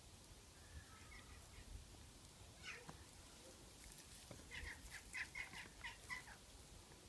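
Faint short animal calls over near silence, with one call early and a quick run of them a little past halfway.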